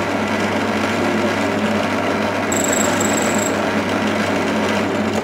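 Drill press running with a 5 mm bit drilling into a metal bar: a steady motor hum under the grinding of the cut, with a thin high squeal about midway for a second. The sound cuts off suddenly near the end.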